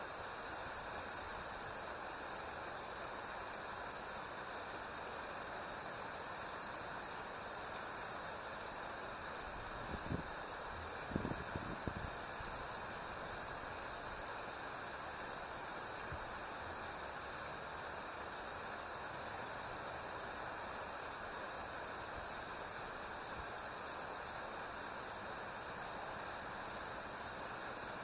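Steady outdoor hiss with a high, even whine band through it. A few soft, low thumps come about ten to twelve seconds in.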